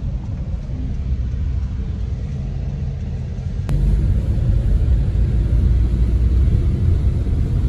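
Car driving, heard from inside the cabin: a steady low rumble of engine and road noise with a faint hiss above it, getting louder and fuller at a sudden change a little under four seconds in.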